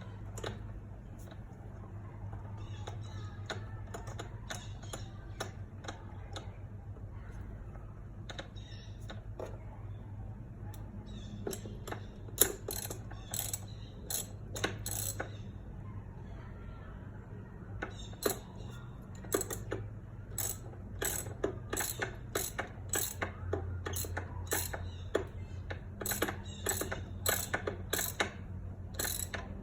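Hand ratchet clicking as a spark plug socket is turned on the plugs of a 2008 Mercury Grand Marquis engine. The clicks are scattered at first, then come in quick repeated runs of strokes through the second half.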